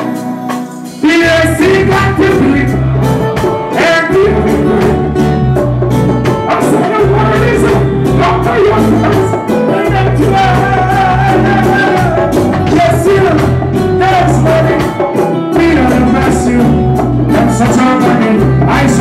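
Live reggae band with drums, bass and keyboards playing while a vocalist sings into a microphone. The heavy bass and drums come in about a second in.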